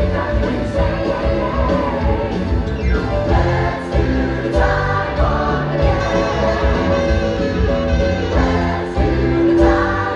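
Live theatre band and cast singing an upbeat number together, with a steady beat.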